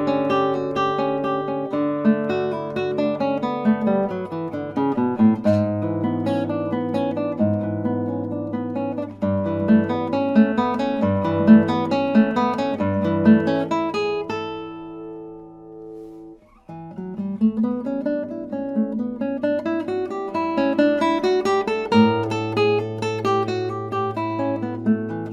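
Nylon-string classical guitar played solo, with flowing runs of picked notes. A little past halfway a chord rings out and fades almost to silence, then the playing resumes.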